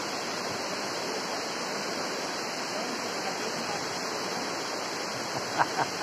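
Jermuk waterfall: water rushing steadily down a broad sloping rock face. A few short sharp sounds cut in near the end.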